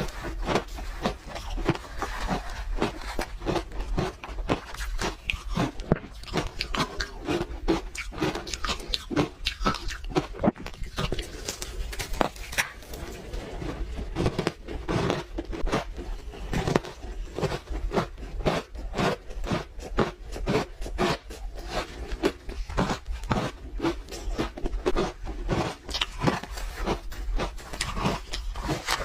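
Pink ice being bitten and chewed close to the microphone: rapid, irregular crunching and cracking, several crunches a second.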